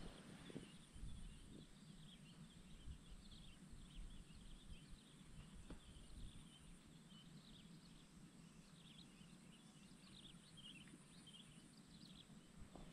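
Near silence: faint outdoor swamp ambience with scattered small high chirps throughout and a soft low rumble underneath.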